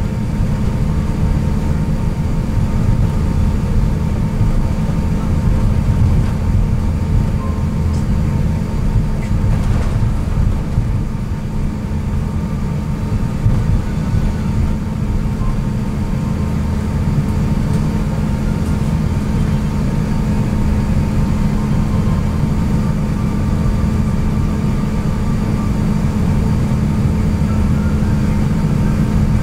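Steady low cabin rumble of an Airbus A350-900 taxiing after landing, its engines at idle and wheels rolling, with a constant hum running under it.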